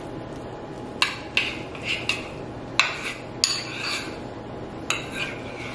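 Spoon stirring guacamole in a small bowl, clinking sharply against the bowl several times at uneven intervals, with soft scraping and squelching in between.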